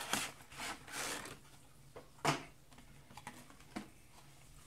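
Packaging rustling as a small model freight car is taken out of its box, then a sharp click a little past two seconds in and a few lighter clicks after.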